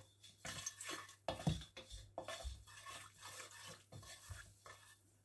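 Wooden spatula scraping and tapping against a black wok, spreading olive oil around the pan as it heats. A string of light scrapes and knocks that stop near the end.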